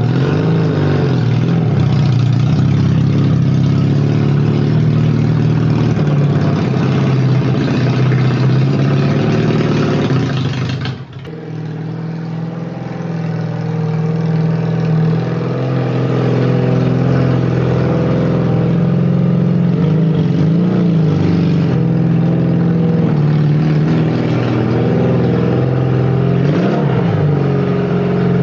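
A 1958 Berkeley SE328's small two-stroke twin engine runs steadily as the car drives off. The level dips briefly about eleven seconds in, and later there are short rises and falls in pitch as it is revved and manoeuvred back.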